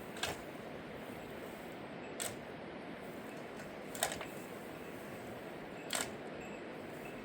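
Four short, sharp knocks about two seconds apart over a steady background hiss.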